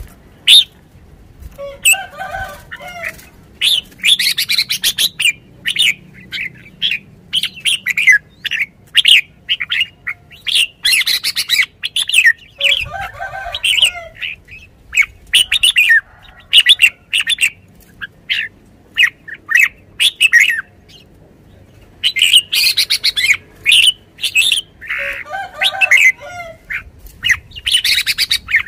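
A caged red-whiskered bulbul calling over and over in short, sharp chirps that come in quick runs. Three longer, lower phrases come roughly eleven seconds apart, with wing flutters as it hops about the cage.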